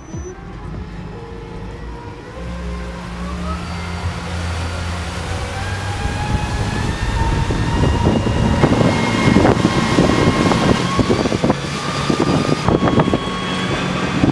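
Vision Marine E-Motion 180E electric outboard driving a pontoon boat: a whine that rises steadily in pitch as the boat accelerates, under a rush of water and wind that grows louder with speed.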